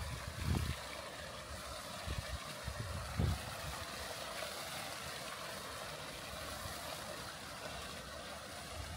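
Steady, even rushing noise, with short low rumbling thumps about half a second in and again about three seconds in.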